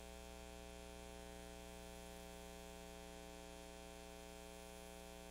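Faint, steady electrical mains hum with many evenly spaced overtones, unchanging throughout.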